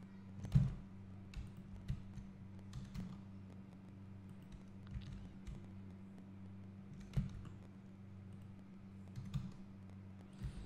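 Computer keyboard and mouse clicking: about ten separate, irregular clicks while working in 3D software, over a steady low electrical hum.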